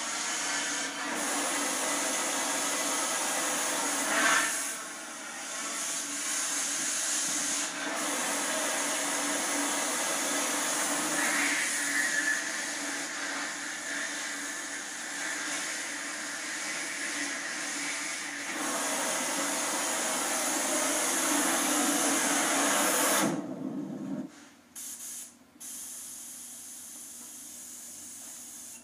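Oxy-fuel cutting torch hissing steadily as it cuts holes through steel tubing. The hiss cuts off near the end, with a couple of short puffs after.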